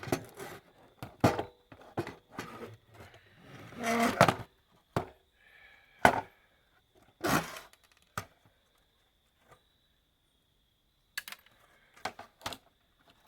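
Clicks, knocks and short scrapes of electronic parts being handled and pulled apart during a teardown, with a pause of a few seconds past the middle and a few more clicks near the end.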